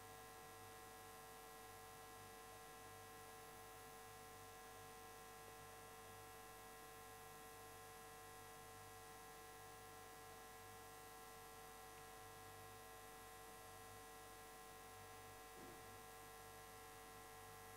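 Near silence with a faint, steady electrical hum and hiss.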